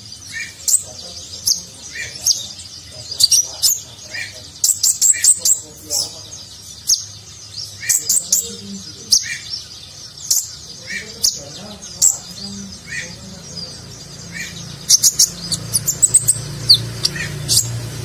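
Male Van Hasselt's sunbird (kolibri ninja) singing: sharp high chirps and quick trilled runs, with a short lower note about once a second. The runs come thicker and faster near the end.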